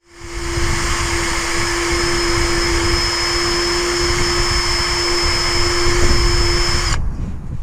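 A power tool's electric motor running at a steady speed with a steady whine, then switched off abruptly about seven seconds in.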